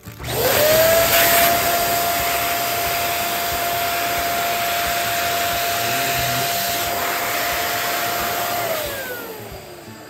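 Electric balloon pump inflating a foil balloon: the motor starts just after the opening and runs with a steady whine over a rush of air. Near the end it is switched off, and the whine slides down in pitch as the motor winds down.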